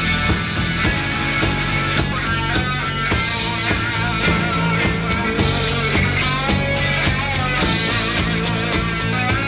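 Live rock band playing an instrumental passage: an electric guitar lead with bent, wavering notes over a steady bass and drum beat.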